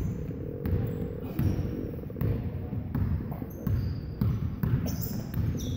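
Basketball dribbled on a hardwood gym floor, about one bounce every 0.7 seconds, with players' sneakers squeaking briefly near the end.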